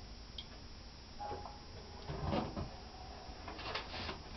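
Soft handling noises in a small room: a dull knock a little past halfway, then a few light clicks and rustles near the end.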